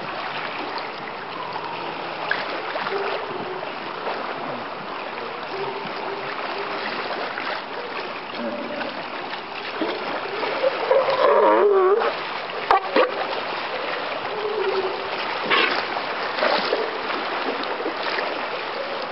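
Water lapping and splashing against a rock, a steady wash throughout. About eleven seconds in, a louder wavering cry rises and falls for a second or so, and a few sharp clicks follow.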